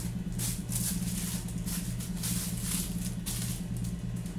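Plastic bag and packaging rustling in several short bursts as an item is pulled out, over a steady low hum.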